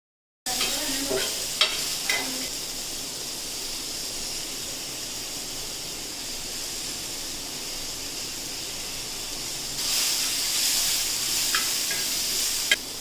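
Food frying in hot oil on a pan, sizzling steadily, with a few sharp clicks. The sizzle starts suddenly and grows louder for a couple of seconds near the end.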